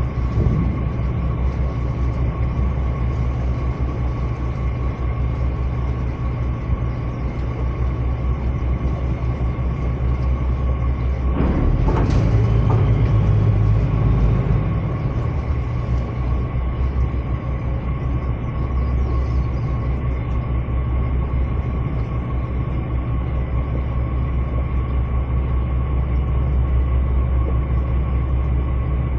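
Ferry towboat's diesel engine running steadily under way, a low drone with a steady hum above it. About twelve seconds in it swells louder for a couple of seconds.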